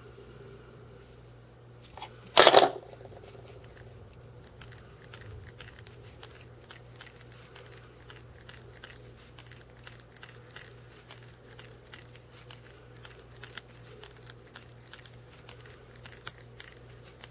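Small irregular clicks and ticks of fly-tying tools and materials being handled at the vise, with one louder sharp click about two and a half seconds in.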